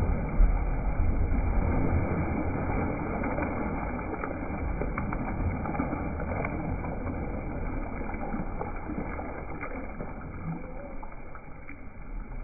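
A swimming-pool splash from a boy jumping in, then the water churning and settling, played back in slow motion so it is low and dull. It is loudest in the first second and fades gradually, with a few faint ticks in the middle.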